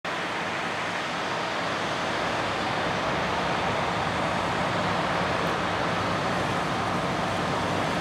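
Steady engine hum and machinery noise of a New Holland CR8090 combine harvesting corn and unloading through its auger, together with a New Holland T9.450 four-wheel-drive tractor pulling a grain cart alongside.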